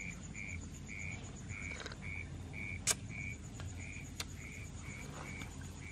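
Night chirping from a calling animal: short high chirps repeating steadily about twice a second, over a low hum, with one sharp click about three seconds in.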